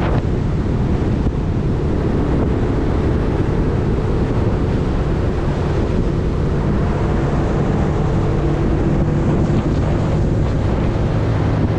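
Small boat's outboard motor running steadily under way, a low engine hum mixed with wind buffeting the microphone.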